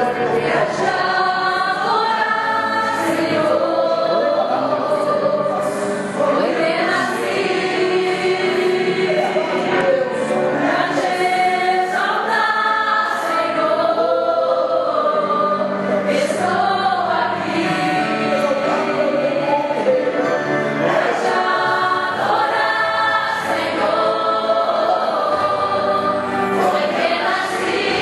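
Four women singing a hymn together as a small vocal group.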